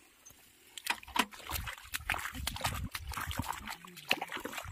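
Mud and water sloshing in a flooded paddy, with irregular knocks and clanks, as a walking tractor on steel cage wheels is dragged and turned by hand; a heavier churning stretch comes about a second and a half in.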